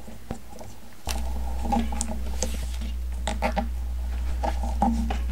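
Handlebar tape being stretched and wound around a road bike's drop bar by hand: a series of small clicks and crackles from the tape and hands. A steady low hum starts suddenly about a second in.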